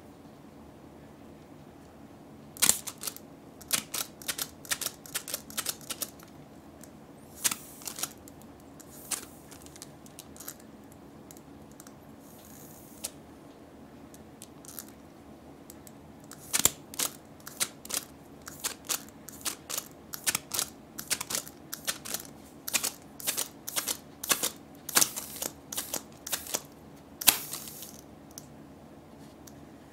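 Close-up handling of a small vinyl capsule-toy figure on a metal ball chain: irregular sharp clicks, ticks and crinkles from the chain and the toy's paper party-horn tongue, in several bursts with pauses between.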